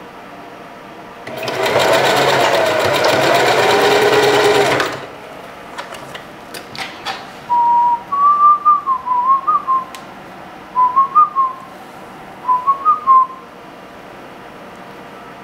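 Singer 4423 Heavy Duty sewing machine running fast for about three and a half seconds, stitching a hair weft onto a wig cap, followed by a few light clicks. Then a person whistles a wavering tune in three short phrases.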